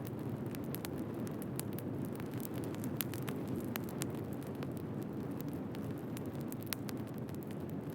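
Wood fire crackling: a steady low rush of burning logs with frequent irregular sharp pops and snaps, one louder snap about three seconds in.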